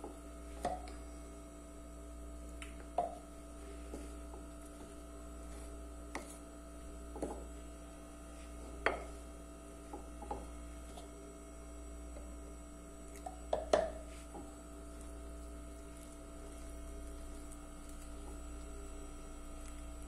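Wooden spoon stirring a stiff flour-and-water dough in a ceramic bowl, with scattered knocks of the spoon against the bowl, a few ringing briefly, the loudest about three, nine and fourteen seconds in. A steady electrical hum runs underneath.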